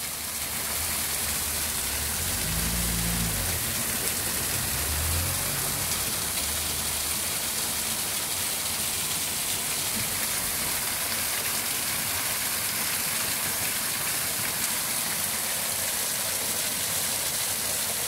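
Small waterfall pouring over a mossy boulder: a steady, even rush of falling and splashing water.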